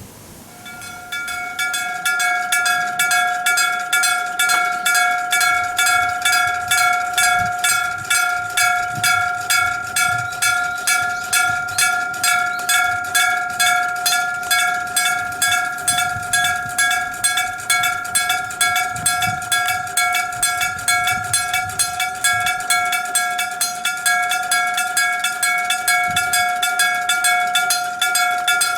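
Electric-bell level crossing warning bell, an aluminium-alloy gong struck by an electric hammer, starting about a second in and ringing in rapid, even strokes, each stroke with a clear bell tone. This is the crossing's warning that a train is approaching.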